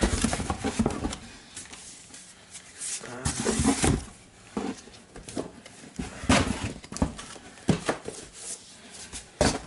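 Books being slid into a cardboard box and shuffled against each other and the box's sides: irregular scraping and rustling with soft knocks, the loudest scrape about three to four seconds in.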